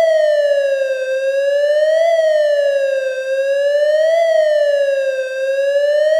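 Ambulance siren wailing: a steady electronic tone sweeping up and down in pitch, one cycle about every two seconds.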